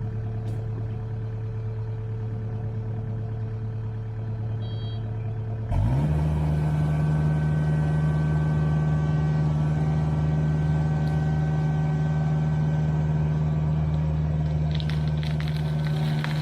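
Mini excavator's diesel engine running steadily, then throttling up abruptly about six seconds in to a higher, louder steady speed as the machine goes to push the tree over. A burst of crackling comes near the end.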